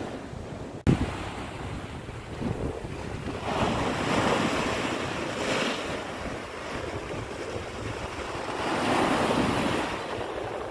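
Sea waves breaking and washing over shoreline rocks, with wind buffeting the microphone. The surf swells louder about four seconds in and again near nine seconds, and there is a brief drop-out with a sharp bump about a second in.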